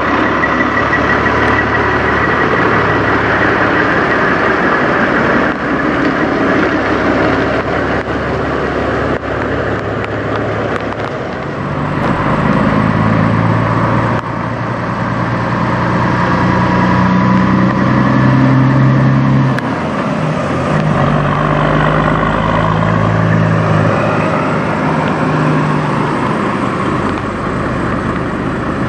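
Kenworth semi trucks' diesel engines running. From about twelve seconds in, one truck pulls a flatbed trailer away; its engine note climbs, drops with a gear change, and climbs again.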